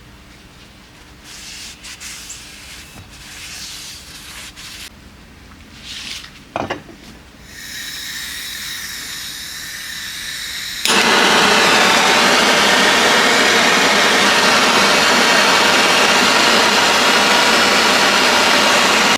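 Transmission parts being cleaned: light scrubbing and rubbing with a couple of knocks, then a steady spraying hiss, and from about eleven seconds in a loud, steady rush of blown air or spray that cuts off suddenly.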